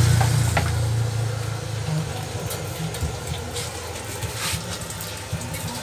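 A nearby motor vehicle's engine hum, strongest in the first second and a half and then fading, over steady background noise.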